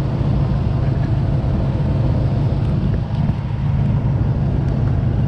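2008 Nissan Titan's 5.6-litre V8 idling with a steady low rumble.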